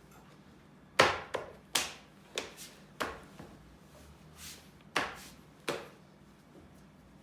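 A series of about nine sharp knocks at uneven intervals, some in quick pairs, each ringing briefly; the first is the loudest.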